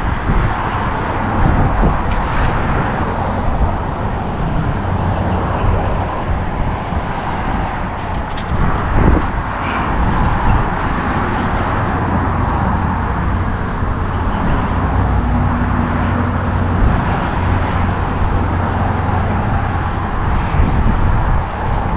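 Steady road traffic noise from vehicles on the highway bridge, a continuous rumble and tyre hiss, with one short sharp click about eight seconds in.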